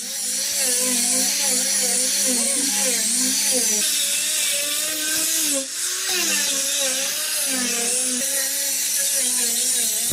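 DeWalt angle grinder running continuously with a sanding attachment on a wooden door: a high motor whine over a steady hum, with pitch that wavers and a hiss of abrasion. It dips briefly about halfway through.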